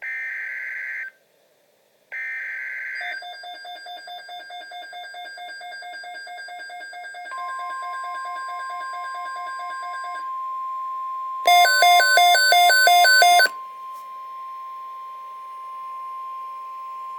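Emergency Alert System activation on NOAA Weather Radio. Two one-second buzzy data bursts of the SAME alert header, then rapid electronic beeping. About seven seconds in, the steady weather radio warning alarm tone starts and holds for about ten seconds, with a louder warbling electronic alarm over it for two seconds near the middle.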